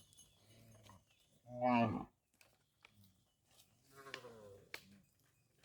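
Cattle mooing: one loud, short moo about a second and a half in, then a fainter, longer moo about four seconds in.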